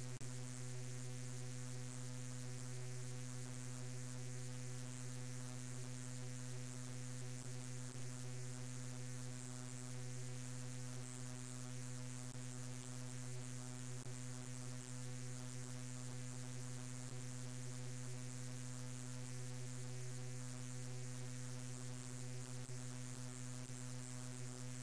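A steady, unchanging low drone with a stack of evenly spaced overtones, held without a break.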